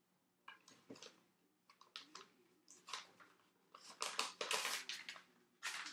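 Soft handling noises: scattered light clicks and paper rustling as an envelope is reached for and picked up, busiest about four to five seconds in.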